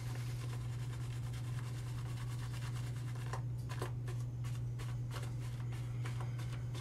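Faint scratching and rubbing sounds over a steady low hum, in a small echoing room.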